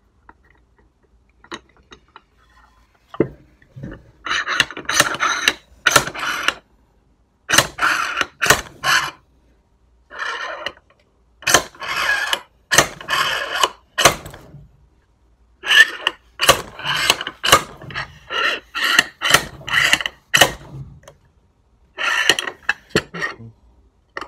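Slide-hammer bearing puller being worked hard, its weight slamming against the stop in repeated runs of metallic blows with short pauses, starting about three seconds in, as it tries to pull the clutch pivot-arm needle bearing out of the clutch cover.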